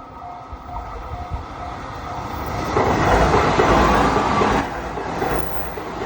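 Japanese level-crossing warning bell dinging rapidly, about two and a half strikes a second. A train then runs through the crossing, growing loud from about three seconds in and easing off after about four and a half seconds.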